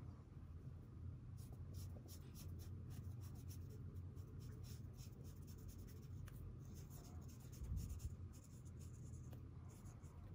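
Ink brush pen's bristles stroking and dabbing across IKEA MÅLA drawing paper in many quick short strokes, a faint scratching over a low steady hum.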